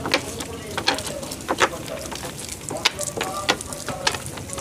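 Wet cast net being gathered into a wooden canoe: several irregular sharp splashes and knocks as the net and its catch slap the water and the hull.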